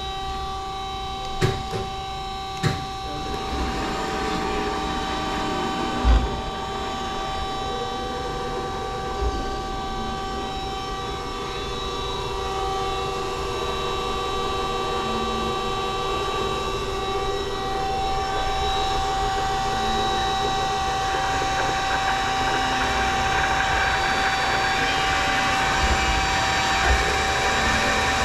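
Peerless VB-1820XL vertical band saw running: a steady machine hum with several held whine tones, louder over the second half. Two sharp clicks of its control-panel selector switches come in the first few seconds, and there is a single knock about six seconds in.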